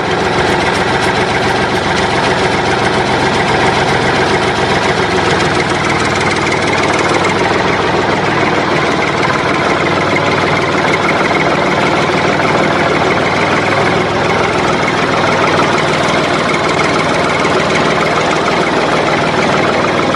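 Steady tractor engine running at idle, a dubbed sound effect over the toy tractor, unchanging throughout.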